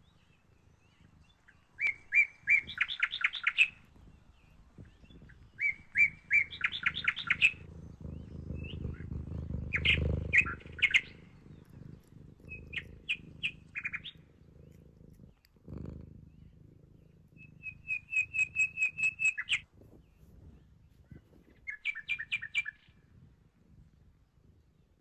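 A songbird sings short, fast trilling phrases, six in all, a few seconds apart. Under it runs a cat's low purring, strongest around the middle.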